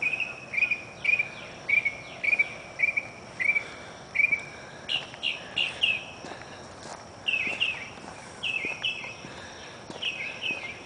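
A bird chirping over and over, about two short chirps a second with a few brief pauses. Under it is a faint, steady, high insect drone.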